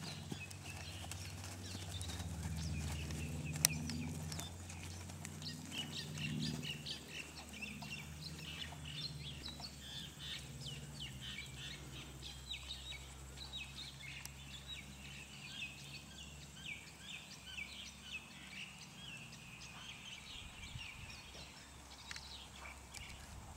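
Birds chirping and singing in a dense run of short, high chirps, over a low outdoor rumble that is loudest in the first few seconds.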